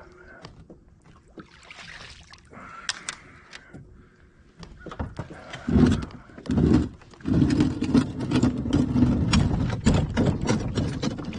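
A kayak being handled: its hull knocking and scraping, with scattered knocks at first. About halfway in, louder low rumbling and thumps take over.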